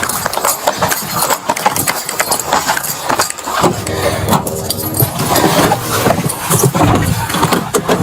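Rustling and knocking of a bodycam rubbing on a moving officer's gear, then a vehicle engine running steadily from about halfway through.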